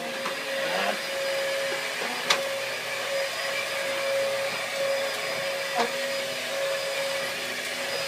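Upright vacuum cleaner running steadily with a high whine, held up in the air rather than on a floor. Two sharp knocks come through, at about two seconds in and near six seconds.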